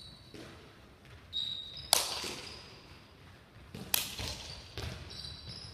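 Sneaker footfalls and jump landings on a sports-hall floor: two loud thuds about two seconds apart with lighter steps between, each echoing in the hall, and short high shoe squeaks.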